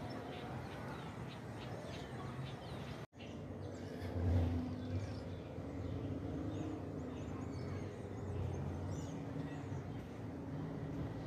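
Outdoor ambience: faint birds chirping over a low, steady rumble of distant traffic. The sound drops out completely for a moment about three seconds in.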